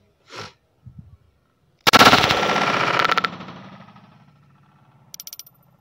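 Darra-made copy of a Zigana Sport 9mm pistol firing a rapid string of shots about two seconds in, lasting about a second and a half, followed by a fading echo. A few faint clicks near the end.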